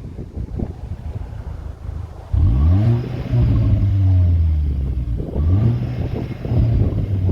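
Cupra Ateca's turbocharged 2.0-litre four-cylinder engine at idle, then revved up sharply twice. Each rev is held for a second or two before dropping back.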